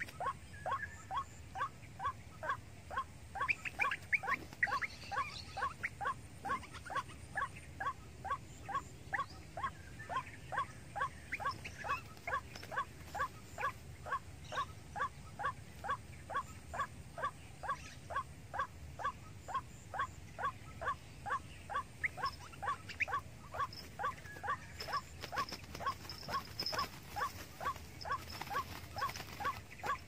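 White-breasted waterhen (ruak-ruak) calling: one short rising note repeated steadily and monotonously, about two to three calls a second, without a break.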